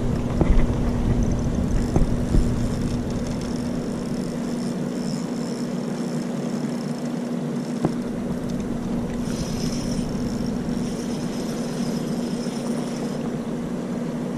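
Boat's electric trolling motor running steadily: a constant hum with a faint high whine that grows stronger for a few seconds in the second half.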